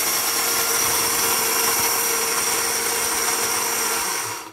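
Small electric spice-grinder jar running at full speed with a steady motor whine, grinding roasted lentils and dry red chilies into powder. The motor is switched off and winds down near the end.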